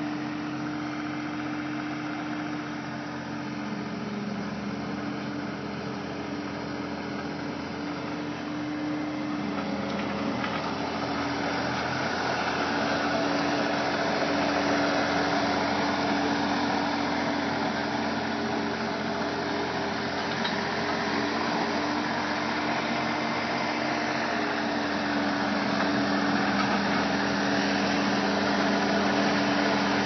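New Holland compact track loader's diesel engine running steadily with a constant hum, growing louder from about ten seconds in.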